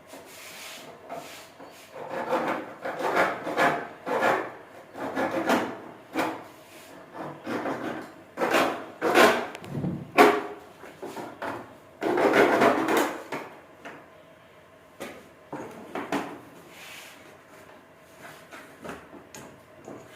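Irregular rubbing and scraping strokes of a hand tool working material, some short and some drawn out, loudest through the middle and fading near the end.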